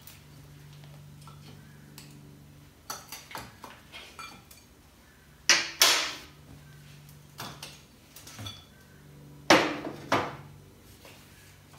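Metal tools clinking and knocking against a motorcycle engine and frame as the last engine mounting nuts and bolts are undone: scattered light clinks, with two pairs of sharp metallic knocks, one about halfway through and one near the end.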